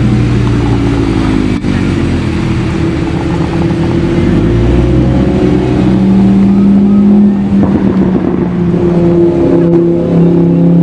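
Audi R8 V10 sports car engine revving, its pitch rising and falling, then settling into a steady drone from about six seconds in.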